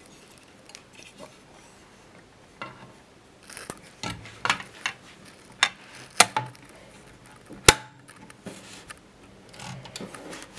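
Groma Kolibri manual portable typewriter being worked: a string of about ten sharp, irregular metallic clacks of the mechanism, the loudest and sharpest about three-quarters of the way through, then softer clicks and handling near the end.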